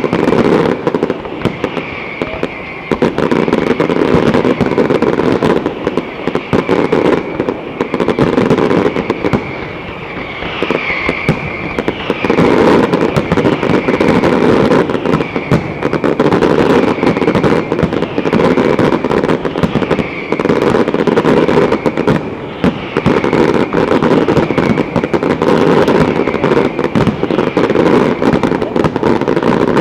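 Large aerial fireworks display: a dense, unbroken barrage of shells bursting overhead, rapid overlapping bangs and crackle.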